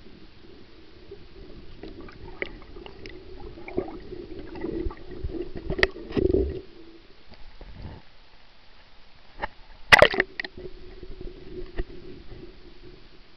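Muffled underwater knocks and scrapes picked up by a submerged camera, with a low thump about six seconds in and the loudest knock about ten seconds in. A faint steady hum runs beneath, dropping out for a few seconds in between.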